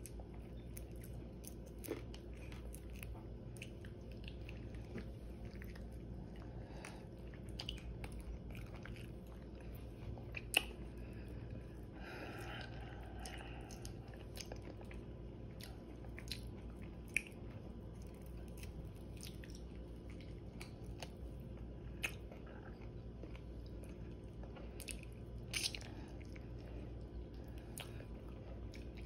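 A person chewing crispy air-fried chicken wing tips close to the microphone, with scattered sharp crunches and clicks every few seconds over a steady low hum.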